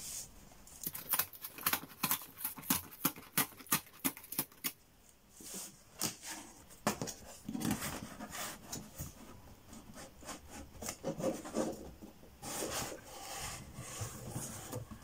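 Cardboard shipping box being opened by hand: a quick run of sharp rasping strokes as the packing tape is worked open in the first few seconds, then softer rubbing and scraping of cardboard as the flaps are pulled back.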